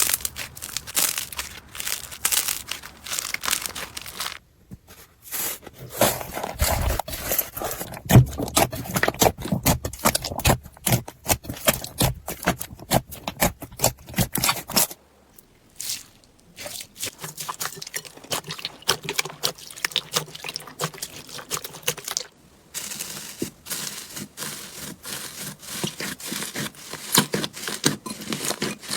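Slime being squeezed, poked and stretched, giving dense, rapid crackling and popping clicks. It comes in several separate stretches broken by short pauses about 4 seconds in, around 15 seconds and about 22 seconds in.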